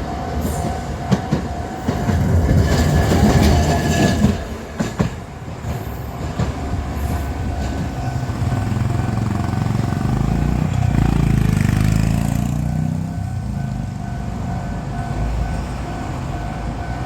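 Kagoshima City Tram cars 9511 and 9509 passing each other at a level crossing, with the crossing's warning bell ringing on a steady pitch throughout. Wheels clack over the rails in the first few seconds, and a low rumble swells and fades about ten to twelve seconds in as a tram goes by.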